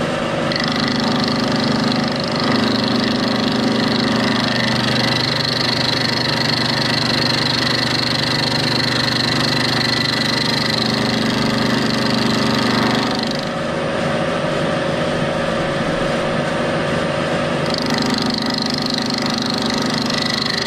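Milling machine running with an end mill facing the end of a steel piece, a steady motor-and-spindle hum under a higher, gritty cutting noise. The cutting noise stops at about 13 seconds and comes back at about 18 seconds while the machine keeps running.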